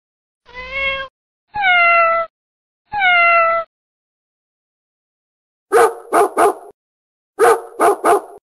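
A kitten meowing three times, the last two calls falling in pitch. After a pause of about two seconds, a puppy yips in two quick runs of three.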